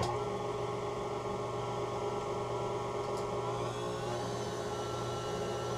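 KitchenAid tilt-head stand mixer running steadily, its motor humming as the beater turns flour into cookie dough.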